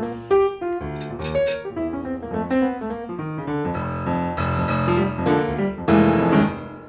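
Background piano music, single notes and chords; it grows louder late on, then drops away at the very end.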